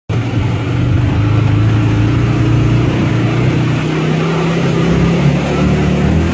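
Side-by-side UTV engine running steadily; about four seconds in its pitch steps up as the engine speeds up.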